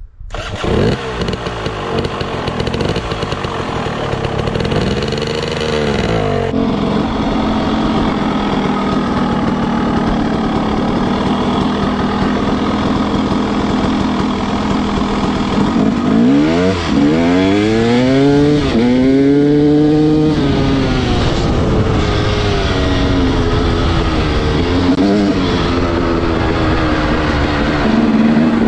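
Dirt bike engine running on the move, its revs climbing and dropping several times, most strongly about five seconds in and again over several seconds past the middle, with a steady rush of wind and road noise underneath.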